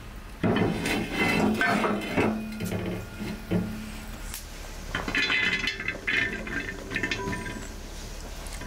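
Aluminium cooking pot and glass lid clanking and clattering on an iron wood-stove top, in two bouts of knocks, scrapes and ringing clinks, the second starting about halfway through.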